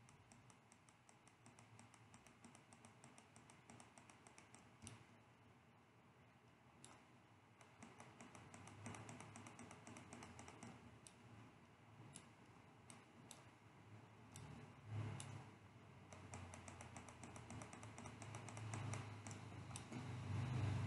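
Faint, rapid clicking of a computer mouse and keyboard, in short runs, while a 3D face mesh is sculpted and the view turned in Blender. A low rumble comes and goes in the second half.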